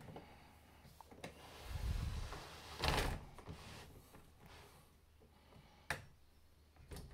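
Handling of a diecast metal scale model of a Komatsu PC4000 face shovel: a few small clicks as the bucket and arm joints are moved by hand, with a louder rustling, rubbing noise about two to three seconds in.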